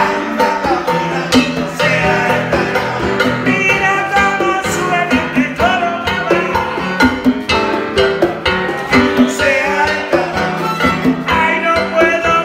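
Live band music: a violin plays the melody with wavering vibrato over a Yamaha electronic keyboard and a steady drum beat.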